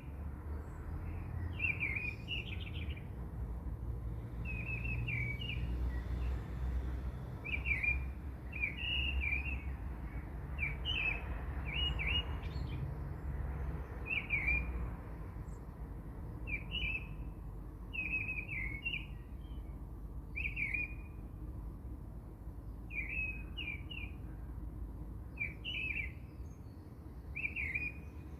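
A bird chirping over and over, short bright calls every second or two, over a low steady rumble.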